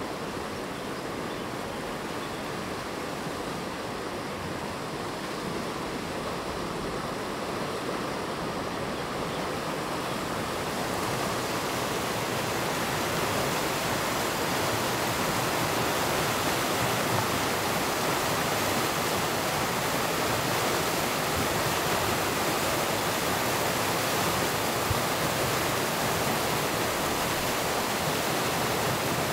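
River water rushing and churning through a sluice under a small bridge into white-water rapids, a steady rush that grows louder about a third of the way in.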